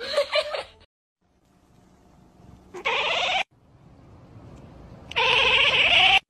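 Cat meowing twice: loud, drawn-out meows that rise in pitch, the second about a second long.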